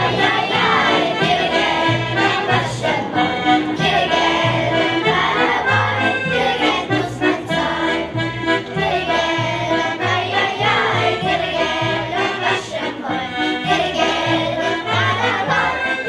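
Klezmer band playing a lively tune over a pulsing bass line.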